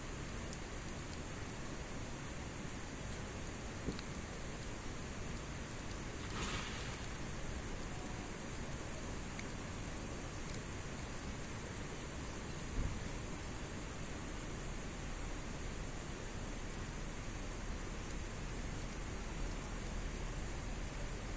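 Campfire burning with a steady hiss and a few faint pops, and a brief louder hiss about six seconds in. A high, evenly pulsing chirr runs behind it.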